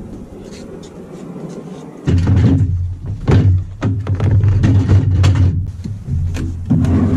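Knocks and thuds of a plastic pedal kayak and its gear being handled and bumped on a dock, louder and more frequent from about two seconds in, over a low rumble.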